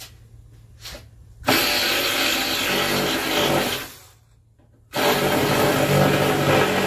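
Cordless reciprocating saw cutting through wood, trimming an excess piece flush with a furniture surface. The saw starts about one and a half seconds in, cuts for about two and a half seconds, stops for about a second, then cuts again.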